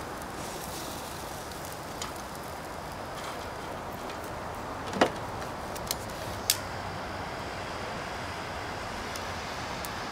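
Steady hiss from a lit portable propane grill's burner, with a few sharp clicks from a handheld red lighter, the loudest about five seconds in.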